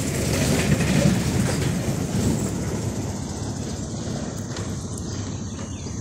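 Rough, low rumbling and rustling of handling noise on a phone's microphone, with no clear tone; louder in the first half, then easing off.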